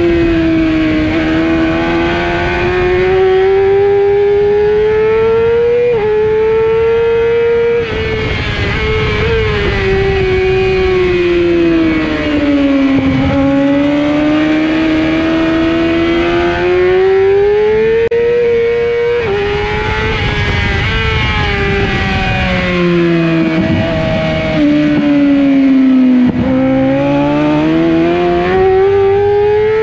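Onboard sound of a 600-class racing motorcycle's engine at full racing pace, with wind rushing past. The engine note climbs hard through the gears with sharp drops at each upshift, about 6 and 8 seconds in and again near 19 seconds, then falls away under braking and downshifts into the corners before rising again, twice over.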